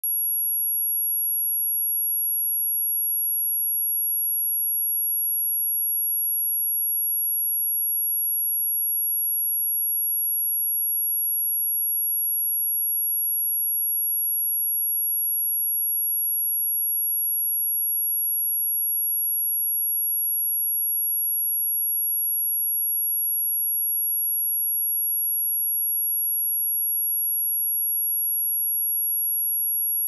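A pure sine-wave test tone at 11,307 Hz, a single very high-pitched whistle held steady at one pitch and level throughout, played to test speakers or shake water and dust out of them.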